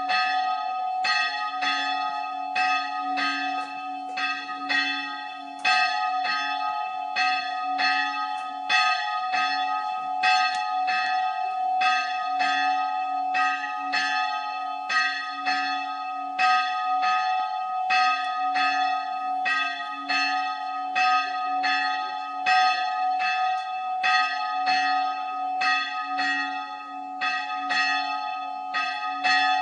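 The bell of Spiekeroog's Old Island Church tolling, struck steadily a little more than once a second, each stroke ringing on into the next.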